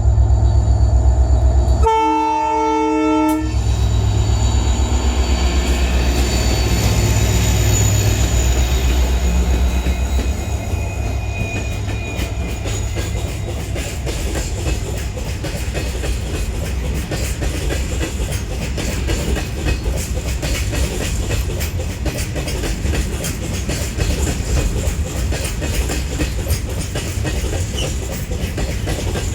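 Twin WDG4 diesel-electric locomotives pass with a heavy, low engine rumble, sounding one short horn blast about two seconds in. After about ten seconds the engine sound fades and the BCNHL goods wagons roll by with a steady clickety-clack rattle of wheels on rail joints.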